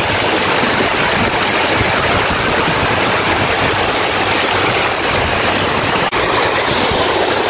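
Rushing water of a small waterfall, a loud steady wash of noise, with a brief drop-out about six seconds in.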